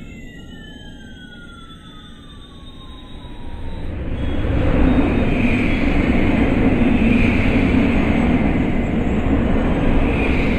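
Battery-powered toy airliner's electronic sound effects from its built-in speaker: rising and falling electronic tones crossing each other, then a loud, steady jet-engine rush that builds up about three to four seconds in and holds.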